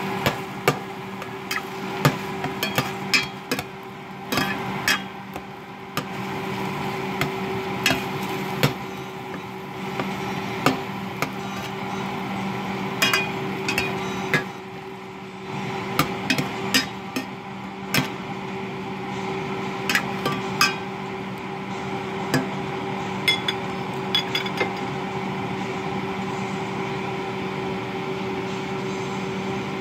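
Cooking spoon knocking and scraping against an enamel pot while ground pork and onions are broken up and stirred, in irregular sharp taps that stop a few seconds before the end. A steady low hum runs underneath.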